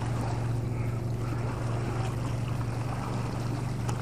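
Small waves lapping against a rocky lakeshore, under a steady low drone.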